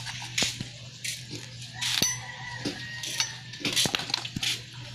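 Distributor and its leads being handled and worked back toward their housing on a Suzuki 12-valve engine: scattered sharp clicks, knocks and short scrapes of metal and plastic parts.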